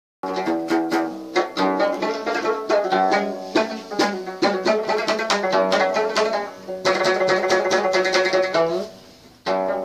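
A Moroccan Amazigh loutar, a long-necked lute with a skin top, played solo. Quick plucked runs sound over a low note that keeps ringing, then the playing dies away briefly about nine seconds in before it starts again.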